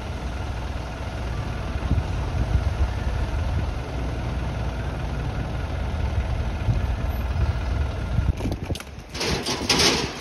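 Vehicle engine idling with a low, steady rumble that drops away about eight seconds in. Near the end come a few short bursts of rushing noise.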